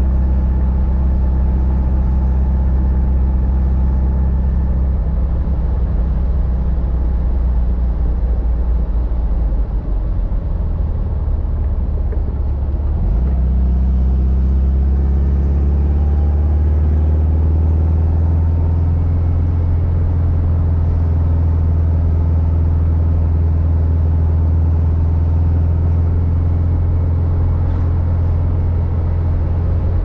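A 1954 Volkswagen Beetle's 36 hp air-cooled flat-four engine running under way. About ten seconds in the engine note dips briefly, then climbs over several seconds and settles into a steady drone.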